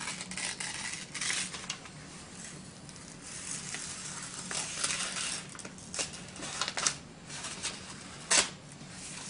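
Art supplies being handled close to the microphone: scratchy paper rustling and swishing with small hard clicks and taps throughout, and a sharper click about eight seconds in.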